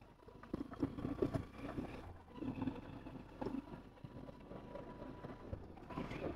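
Faint wind rush on the microphone and road noise from a moving motor scooter.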